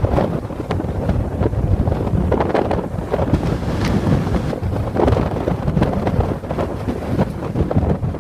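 Strong gusty wind, the return wind behind a passing typhoon at 10 to 15 m/s or more, buffeting the microphone: a loud low rumble that swells and drops in quick, irregular gusts.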